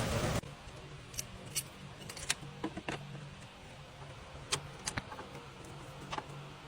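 Scattered light metallic clicks and clinks of hand tools and parts being handled under a car's hood, over a low steady hum. A louder steady noise cuts off about half a second in.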